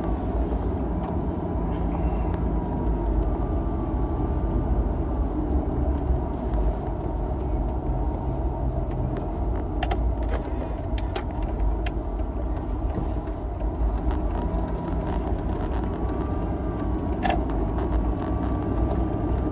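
Steady low engine and road rumble of a vehicle driving slowly, heard from inside the cab, with a few light clicks about halfway through and again near the end.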